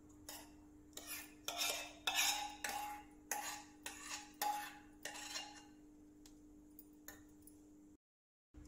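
A metal spoon scraping and clinking against a steel pan as thick cooked coconut jelly mixture is scraped out into a small steel bowl. The scrapes come as a quick irregular series over about five seconds, some with a short metallic ring, over a low steady hum.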